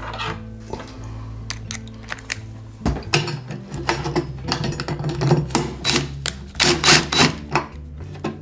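Cordless DeWalt impact driver with a socket, tightening quarter-inch hex nuts and bolts on a steel pole bracket into a wooden nest box. It runs in several short bursts of rapid impacts from about three seconds in.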